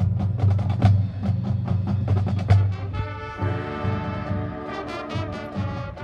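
Marching band playing: a fast run of percussion strokes over a low sustained bass, then the winds come in with held chords about three and a half seconds in.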